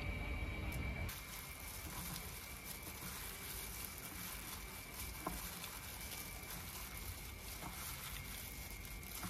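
Hand in a thin plastic glove tossing shredded chicken salad in a bowl: soft rustling and patter of the glove and the vegetables, with small scattered ticks. A faint steady high tone runs underneath.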